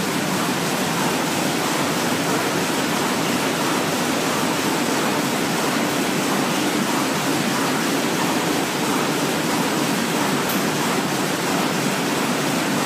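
German-made printing press running: a steady, even rush of machine noise with no clear beat.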